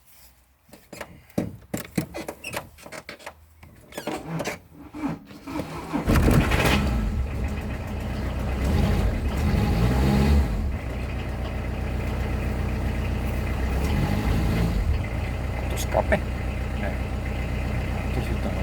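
A few light clicks and knocks, then about six seconds in the Citroën Berlingo's 1.9-litre four-cylinder diesel engine starts. It catches at once and settles into a steady idle.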